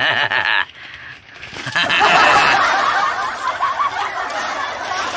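Snickering laughter, loudest from about two seconds in.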